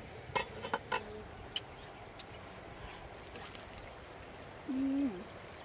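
A knife clicking and scraping against a clay plate while roasted pork head meat is cut and pulled apart, a quick cluster of clicks in the first second and a few more after. Near the end, a short low hummed "mmm" of someone chewing, holding steady and dropping at its end.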